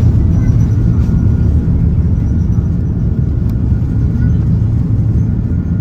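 Jet airliner cabin noise: a loud, steady low rumble of engines and airflow heard from inside the passenger cabin.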